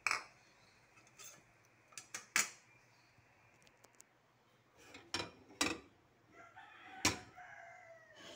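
Irregular sharp clicks and knocks of a stainless steel pan and metal on a gas stove. Near the end comes a drawn-out pitched call that falls in pitch.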